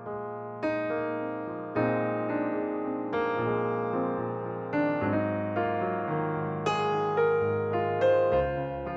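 Slow, gentle background piano music, each note or chord struck and left to fade, a new one about every second.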